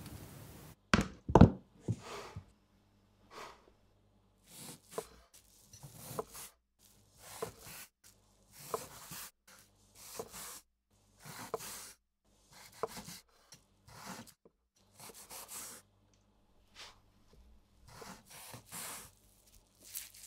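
Chef's knife slicing a cooked steak on a wooden cutting board, one stroke about every second and a bit, each cut a short rasp through the meat ending in a tap of the blade on the wood. Two sharp knocks on the board come about a second in.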